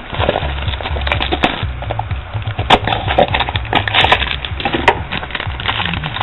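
Foil trading-card pack wrapper crinkling and crackling as it is handled, a dense run of small crackles and clicks over a low hum.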